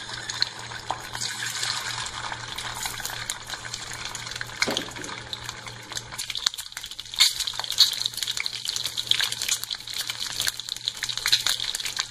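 Peeled boiled eggs frying in hot oil in a small nonstick pan: steady sizzling with many sharp crackles and pops of spattering oil, busier in the second half.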